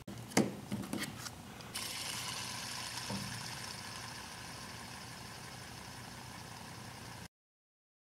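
Cast-resin Batman-logo hand spinner picked up with a few sharp clicks, then spun between the fingers: its steel ball bearing whirs steadily and slowly fades, cutting off suddenly near the end.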